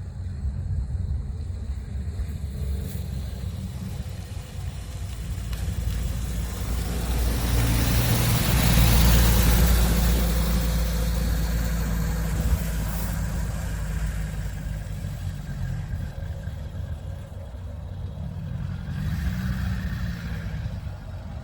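A car's engine and road noise, growing louder to a peak about nine seconds in, then easing off.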